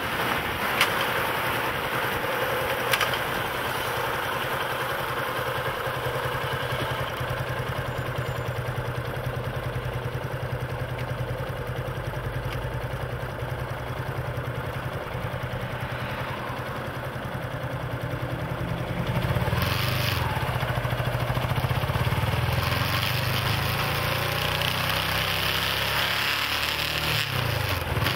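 Motorcycle engine running while the bike is ridden along the road, with steady road and wind noise; it grows louder about two-thirds of the way through.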